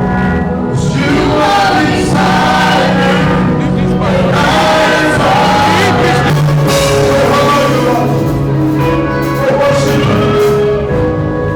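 Live gospel worship music with voices singing together over a band, played loud and steady.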